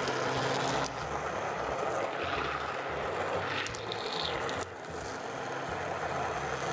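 Hand-held stick blender running in a bowl of cooked peaches, puréeing the syrupy fruit chunks into jam: a steady motor whir with a low hum, dipping slightly in level twice.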